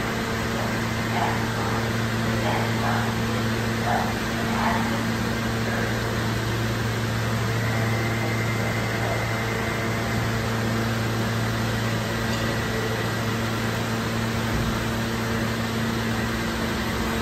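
Steady hum of a New York City subway E train standing at the platform, its air conditioning and electrical equipment running.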